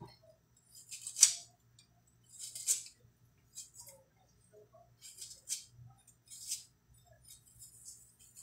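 Kitchen knife slicing through a red onion held in the hand: about six short cutting strokes at uneven intervals, over a faint steady low hum.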